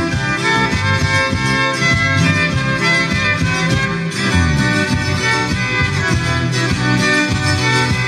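Instrumental background music with a quick run of melody notes over a bass line.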